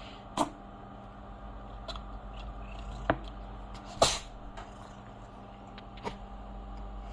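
Domestic cat sneezing: a few short sharp sneezes, the loudest about four seconds in, over a steady low hum.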